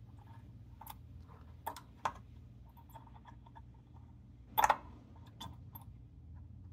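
Soldering iron tip clicking and scraping against a power transistor's thick legs on a circuit board as they are pried straight: scattered small ticks, with one louder scrape a little past the middle, over a faint low hum.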